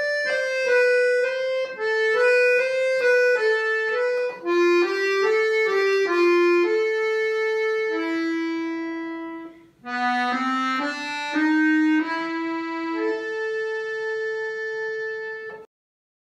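Bayan (Russian chromatic button accordion) playing a waltz melody with the right hand alone, one note at a time, with a brief break about two-thirds through; the playing stops shortly before the end.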